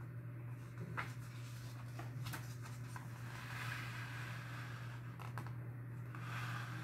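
A paper page of a picture book being handled and turned: rustling and crinkling paper with a few light taps, over a steady low hum.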